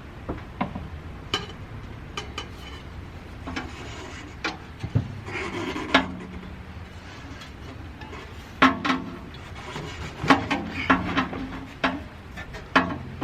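Aftermarket exhaust pipe sections knocking, clanking and scraping against each other and the car's underside as they are fitted, with short ringing metal clangs, most of them in a cluster in the second half.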